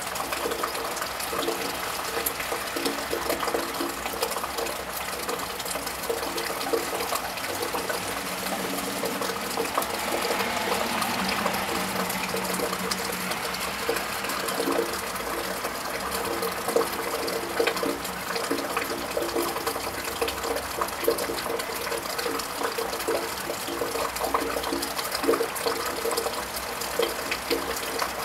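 Steady rain with many small drips pattering on a wet tiled roof and gutter. Partway through, a car passes on the wet road, its tyre hiss swelling and fading over about five seconds.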